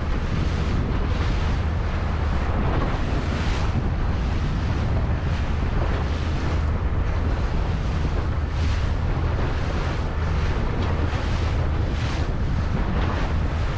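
Yamaha outboard motor running steadily, pushing a small boat across choppy sea, with wind buffeting the microphone and waves slapping the hull about every second.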